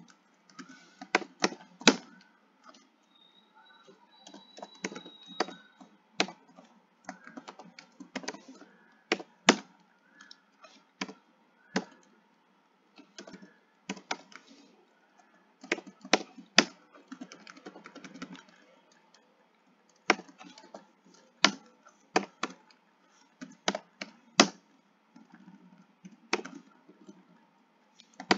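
Typing on a computer keyboard: irregular keystrokes in short bursts with pauses between.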